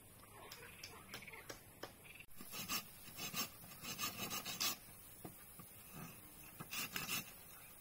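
Rough rasping strokes of a hand tool on wood, about three a second, in two runs, after a few light ticks near the start.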